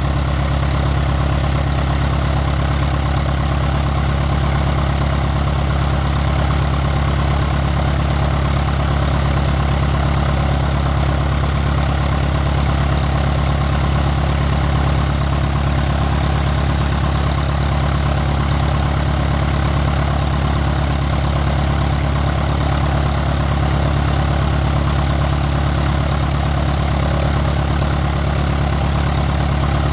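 Piper PA-28 Cherokee Warrior's four-cylinder piston engine idling steadily at ground idle, a constant low hum with no change in engine speed.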